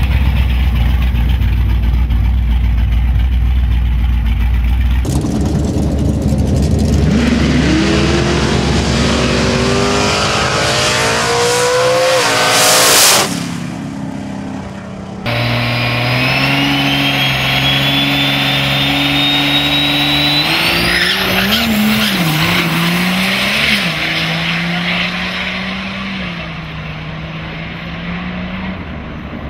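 Drag-racing pickup truck engines in three quick cuts: a V8 idling with a steady low rumble, then a truck accelerating hard down the strip, its engine pitch climbing to a loud peak. Then a diesel pickup pulls hard with a high whistle rising in pitch above the engine, and the sound fades near the end.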